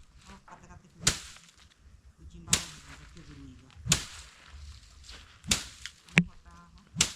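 A series of sharp whacks, six in all, roughly one every one and a half seconds, with a quick extra one after the fifth: a tool or stick striking something.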